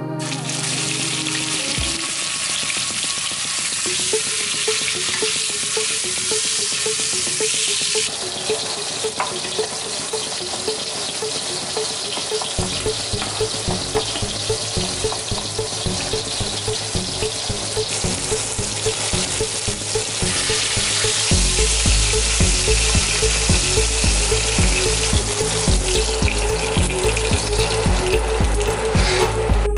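Boneless beef ribs sizzling as they brown in hot oil in an enamelled cast-iron Dutch oven. Background music with a steady beat comes in a few seconds in and grows fuller, with a bass line added later.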